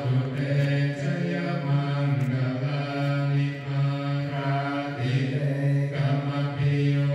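Theravada Buddhist chanting: voices intoning in unison on a steady low pitch, held phrases with short breaks between them.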